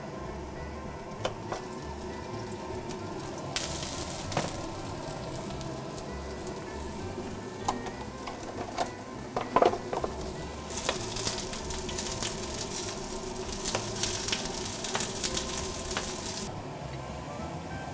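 Halved shallots sizzling as they fry in oil in a skillet, in two stretches, the longer one in the second half, with a few sharp taps in between. Background music plays underneath.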